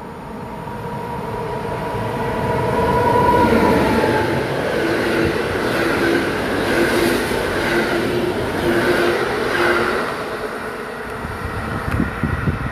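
Locomotive-hauled Intercity passenger train running through a station at speed. It builds as the locomotive approaches and passes about three to four seconds in, its tone dropping in pitch. The coaches follow with a rhythmic clatter of wheels over the rails, and the sound falls away near the end as the train recedes.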